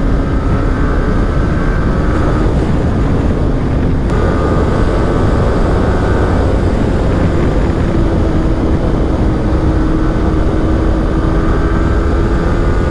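Yamaha R15 V3's single-cylinder engine running at highway speed, heard from the rider's seat under heavy wind rumble on the microphone. Its note steps up about halfway through as the bike speeds up, then holds steady.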